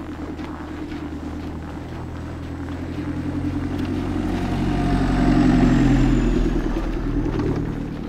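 A box truck driving past on the road, its engine getting louder to a peak about five to six seconds in and then fading away.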